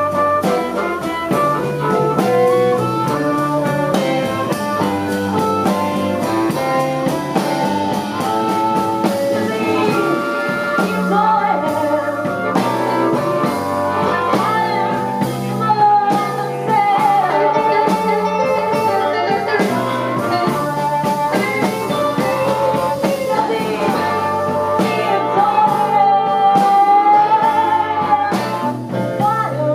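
Live electric blues band performing, with a woman singing over electric guitar, electric bass and drums.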